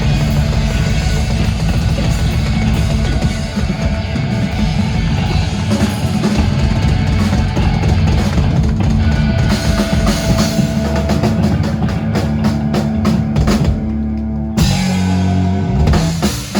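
Live rock band playing the instrumental close of a song, with the drum kit loud and hitting rapidly. Near the end the cymbals drop away and a low chord rings briefly.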